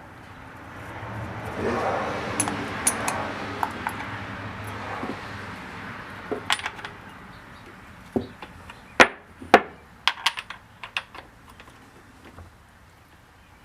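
Metal rattling and clinking from a chainsaw chain and hand tools being handled while the chain tension is checked and adjusted on the bar. A rough rattle comes first, then a string of sharp clinks.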